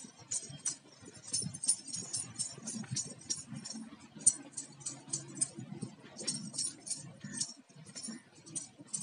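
Metal payal anklets jingling in quick irregular clinks, several a second, as bare feet shift and step.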